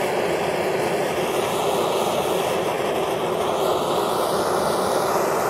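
Handheld gas torch burning steadily, a constant rushing hiss of its flame playing on the melting polymer magazine.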